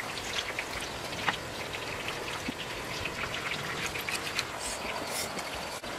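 Several dogs eating grilled fish from a woven bamboo basket: many small, irregular wet clicks and crunches of chewing and licking over a steady hiss.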